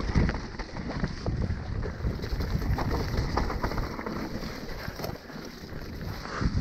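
Mountain bike descending a wet, leaf-covered dirt trail at speed: wind buffeting the action camera's microphone over tyre noise and the rattle and knocks of the bike, with a sharp knock just after the start and another just before the end.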